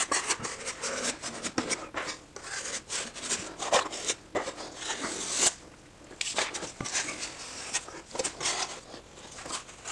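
Metal putty knife scraping excess drywall joint compound out along the edges of a freshly screwed-in drywall patch: a quick run of short scrapes and taps, with a brief pause about halfway through.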